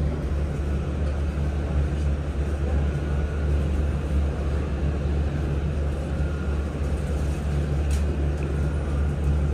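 Steady low hum and rumble inside the passenger cabin of a Hankyu 2300 series electric train, with a faint click about eight seconds in.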